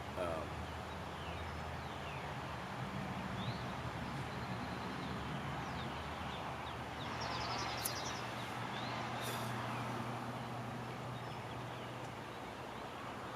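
A steady low engine hum, with birds chirping now and then.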